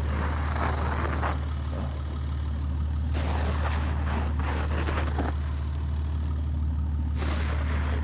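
Snow being swept off a car's hood by hand or brush in a few short brushing strokes, the biggest about three and seven seconds in, over the steady low hum of the SUV's engine idling.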